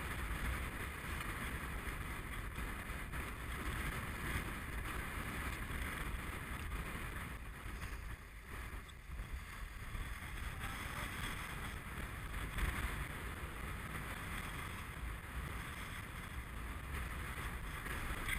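Steady wind noise on the microphone and water rushing along the hull of a Farr 30 racing keelboat under sail.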